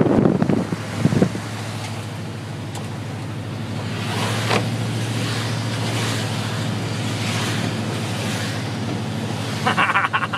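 Car driving on a wet, flooded road, heard from inside the cabin: a steady hum of the engine and road under an even hiss of tyres on the wet pavement. Wind buffets the microphone for about the first second.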